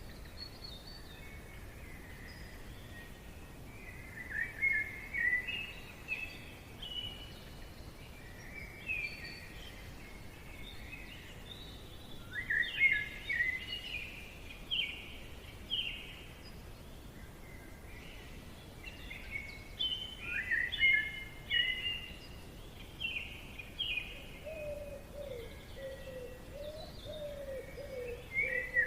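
Forest ambience: songbirds singing repeated short chirping phrases over a steady low background hiss. Near the end a second, lower-pitched bird call joins in, wavering up and down.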